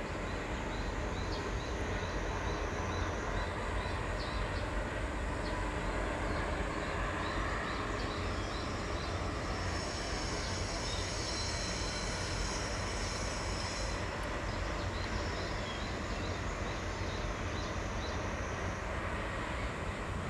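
Steady outdoor background noise, a low rumble with an even hiss over it, and faint high chirps repeating throughout.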